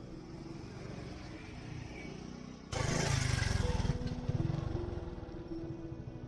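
A motorcycle riding close past, its engine sound coming in suddenly and loudly about three seconds in and fading away over the next two seconds. Background music of long held tones runs underneath.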